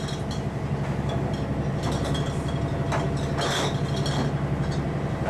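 An engine idling steadily, a low, evenly pulsing drone, with a few light knocks and clatters over it.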